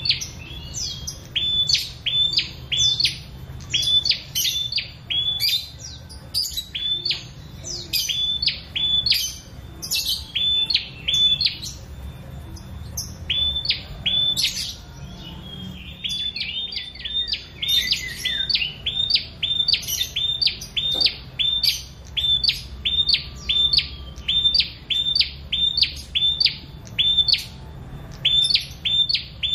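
Ashy tailorbird (prenjak) singing: long runs of loud, sharp, high notes about two a second, broken by a couple of short pauses.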